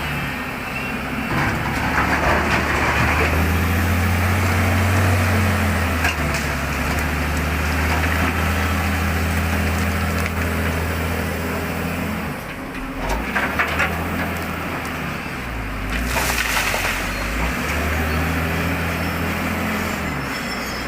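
Hydraulic excavator's diesel engine running under changing load, its pitch shifting several times, with bursts of crackling and scraping from the digging a few times.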